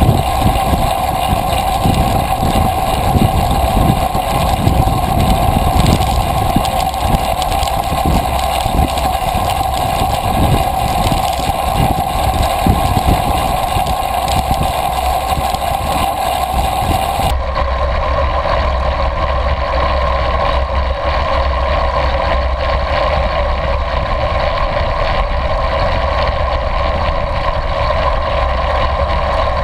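Wind rushing over the camera microphone and tyre noise on asphalt from a recumbent trike riding at speed: a steady, loud rush with low buffeting, changing abruptly in tone about 17 seconds in.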